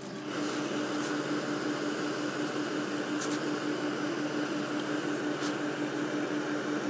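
Steam-pressing equipment for a hose-fed steam iron switches on and runs with a steady hiss and a low pulsing hum, with a few light clicks about a second, three seconds and five seconds in.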